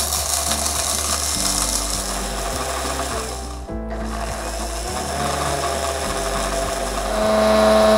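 Hand blender with a chopper attachment grinding dry-toasted whole spices into powder in its plastic bowl: a steady motor whir with grinding. It stops briefly a little under four seconds in, starts again, and runs louder near the end.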